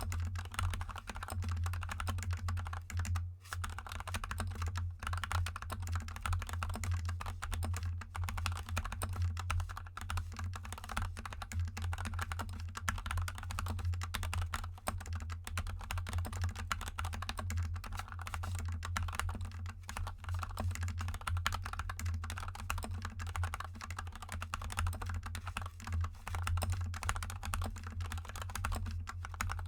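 Continuous fast typing on a GK64 mechanical keyboard with Gateron Yellow linear switches lubed with Krytox 205g0 and XDA keycaps: a dense, unbroken run of key clacks. A steady low hum sits underneath.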